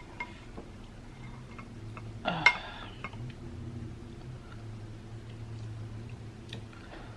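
Small clicks and taps of eating at a table, utensils and dishes, over a steady low hum, with one short loud pitched sound about two and a half seconds in.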